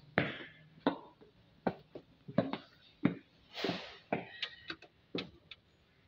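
Footsteps on a hard tiled floor: a run of irregular sharp taps, about a dozen, closer together in the second half, with a short breathy rush about three and a half seconds in.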